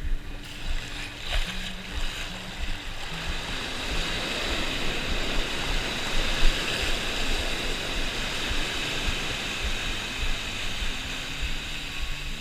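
Surf washing onto a beach: a steady rush of breaking waves that swells and fades.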